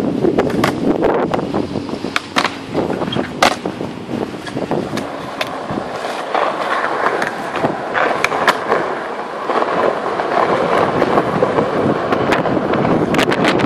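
Skateboard wheels rolling over smooth concrete, with sharp clacks of the board scattered throughout.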